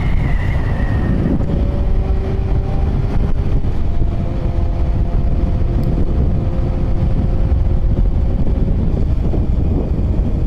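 Wind rushing over the microphone on a Yamaha FZ1 motorcycle cruising at steady speed, with the engine's steady drone faintly beneath the wind.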